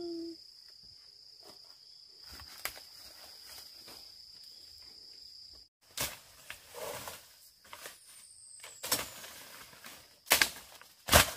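A steady high-pitched insect drone that stops a little over halfway through, then several sharp knocks, the loudest near the end.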